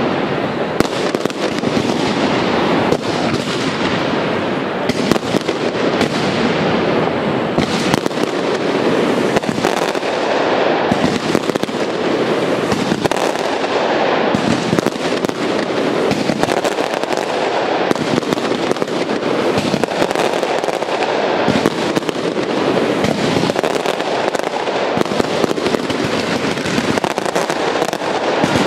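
Aerial fireworks display firing an unbroken barrage: many bangs and crackles in quick succession with no pause.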